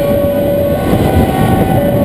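Two-tone emergency vehicle siren alternating between a lower and a higher note, each held for about a second, over the loud running and road noise of the fire engine in motion.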